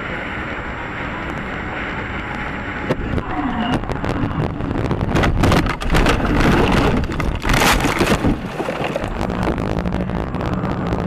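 Road noise inside a moving car, then from about three seconds in heavy rumbling, banging and rattling as the car runs off the road onto rough ground, loudest between five and eight seconds in; a steady hum follows near the end.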